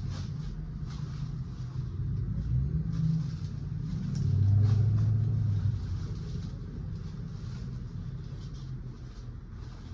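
Low motor-vehicle engine rumble that swells about halfway through and then fades away.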